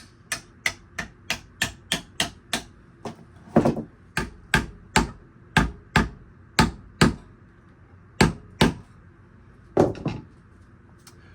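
A hammer tapping perches into a bird feeder: about twenty sharp strikes in quick groups. The first few are lighter, and the strikes get harder from about three and a half seconds in.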